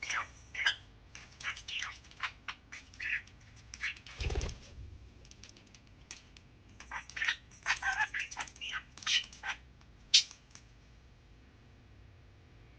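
Pet budgerigars chirping and chattering in short, rapid high calls, in two bursts, with a soft low thump about four seconds in.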